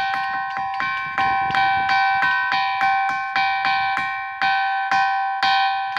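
A ringing rock struck again and again with another stone, each strike giving a bell-like ring like a temple bell. There are about two to three strikes a second, and the ringing tones carry on between them.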